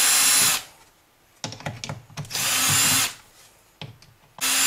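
Cordless drill-driver running in three short bursts, at the start, about halfway through and near the end, backing screws out of a flat-panel monitor's stand, with small clicks of the bit and screws between bursts.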